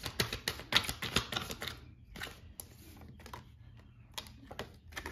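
Tarot and oracle cards being handled on a tabletop: a quick run of light clicks and taps for about two seconds as cards are flicked, slid and laid down, then a few scattered taps.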